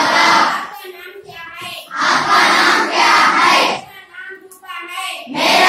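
A class of schoolchildren chanting words aloud in unison, call-and-response style: a single voice gives a short phrase and the whole class repeats it, three times over. This is rote recitation of lesson words.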